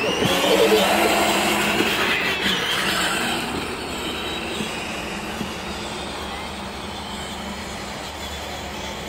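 Battery-powered ride-on toy Jeep Wrangler driving over grass, its electric drive motors and plastic gearboxes whining steadily. Loud at first, then fading over the first few seconds as it moves away.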